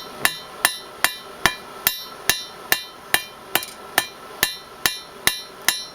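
Hand hammer forging a hot silver-steel knife blade on an anvil: steady blows, about two and a half a second, each with a short metallic ring.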